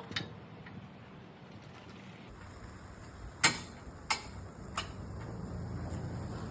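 Three sharp metal knocks about two-thirds of a second apart, the first the loudest, as the steel quick hitch is worked onto the tractor's lower lift arms, over a low steady hum.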